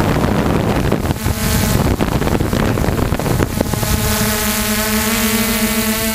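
Electric motors and propellers of a radio-controlled FPV aircraft, heard through its onboard camera, with wind buffeting the microphone; from about four seconds in the motors settle into a steady, evenly pitched hum.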